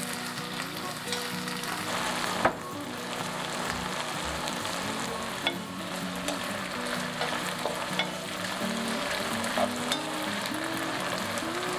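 Shrimp and garlic scapes sizzling in a nonstick wok while a wooden spatula stirs them. A few sharp knocks of the spatula against the pan cut through, the loudest about two and a half seconds in.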